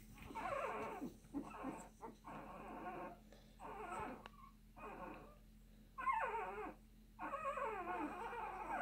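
Two-week-old American Bully puppy whimpering in a string of about eight short, high cries, several of them falling in pitch, with brief pauses between.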